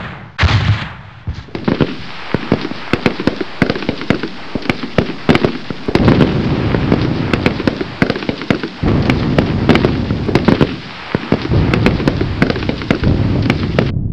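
Loud, dense barrage of crackling pops and bangs over a low rumble, cutting off suddenly near the end.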